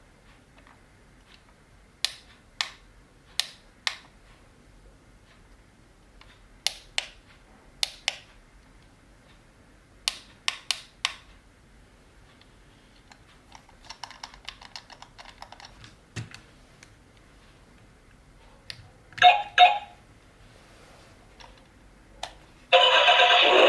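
Sharp plastic clicks in groups of about four, then a short rattle, a knock and a louder clatter, as hobby RC car parts are handled. Near the end a loud steady whirring noise starts suddenly.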